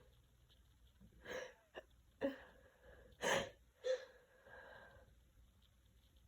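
A woman with a cold sneezing: catching in-breaths from about a second in, then a run of sharp sneezes, the loudest about three seconds in, trailing off into a softer breath.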